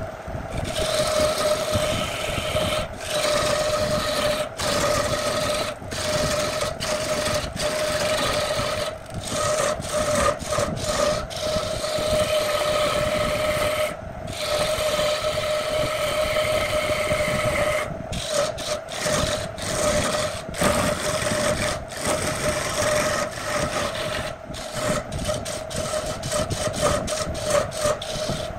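A hand-held gouge cutting a large wood blank spinning on a wood lathe: a continuous shaving, scraping noise with many short breaks, over the lathe's steady motor hum.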